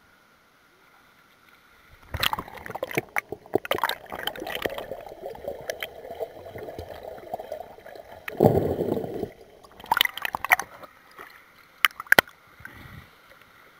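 Water gurgling and sloshing around a waterproof camera as it goes under the surface of a swimming pool, with many sharp clicks and knocks on the housing. It starts about two seconds in, and a louder rush of water comes about eight seconds in.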